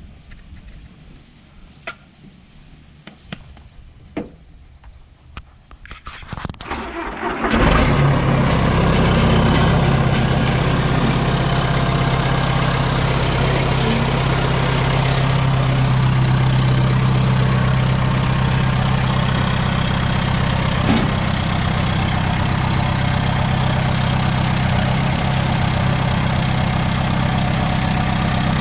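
A few scattered clicks and knocks, then a John Deere tractor engine is cranked and catches about seven seconds in. It then runs steadily and loudly at idle.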